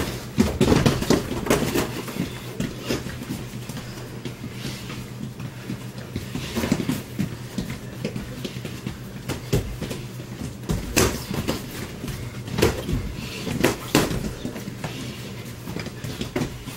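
Irregular thuds and slaps of padded boxing gloves landing on the opponent's gloves and headgear, mixed with shoes stepping and scuffing on the ring mat, over a steady low hum.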